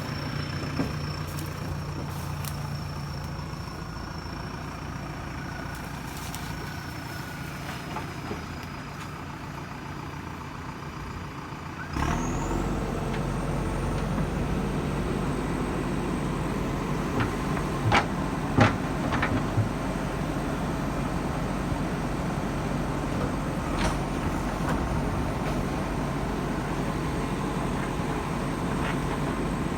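Diesel engine of a JCB 3DX Super backhoe loader running steadily. About twelve seconds in the sound jumps abruptly to a louder, deeper running. A few sharp knocks come near the middle and one later.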